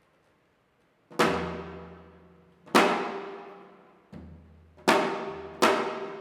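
Janggu, the Korean hourglass drum, struck five times at a slow, uneven pace. Each stroke is a sharp hit followed by a deep, ringing tone that dies away slowly, and the third stroke is softer.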